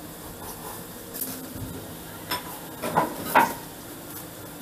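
A few short scrapes and clicks of a peeler taking the skin off an unripe green papaya. The loudest pair comes about three seconds in.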